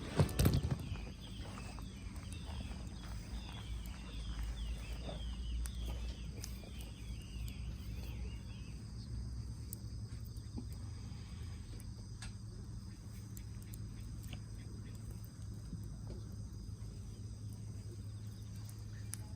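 A sharp knock at the start, then a rapid series of insect chirps for about nine seconds. Faint scattered crackles and clicks continue over a low steady hum, typical of a small pine-cone fire catching in a fire pit.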